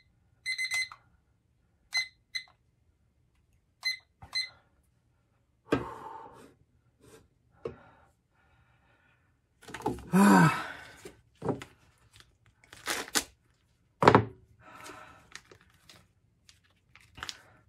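KooPower digital timer giving short electronic beeps as its buttons are pressed, a handful of them in the first four or five seconds. Then a plastic packet crinkles and tears as it is opened, with a few loud crackles near the middle.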